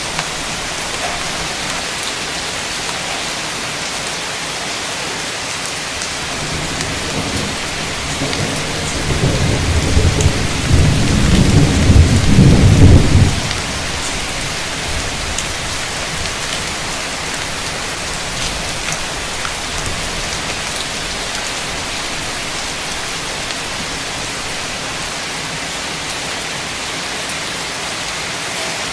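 Heavy, steady rain with a roll of thunder that builds about a quarter of the way in, rumbles loudest for a few seconds and cuts off abruptly, leaving only the rain.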